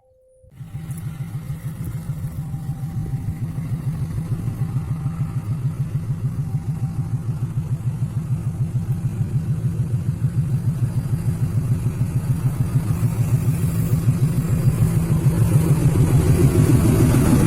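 Diesel locomotive engine running with a rapid, even throb, starting abruptly about half a second in and growing steadily louder.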